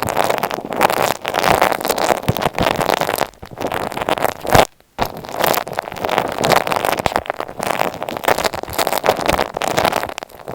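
Close-up scratchy crackling and rubbing against an earphone microphone, dense and continuous, with a brief break about five seconds in.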